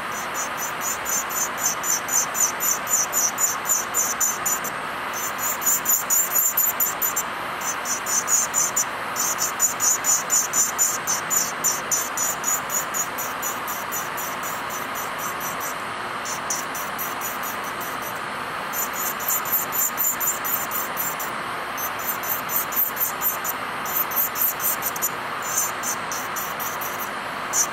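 Bandi electric nail drill running with a steady whine while its bit lightly skims base gel off a natural fingernail, giving rapid scratchy strokes about four or five a second, with short pauses between runs.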